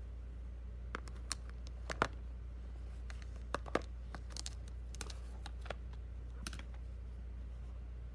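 Irregular light clicks and taps of plastic gel pens and their caps being handled during colouring, about a dozen over several seconds, over a steady low hum.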